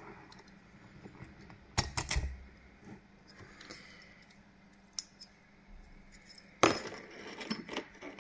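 Sharp metallic clicks and clinks of a key and a Kale 164 BNE dimple cylinder lock being handled. A quick cluster of clicks comes about two seconds in, a single click follows, and the loudest clatter comes near the end.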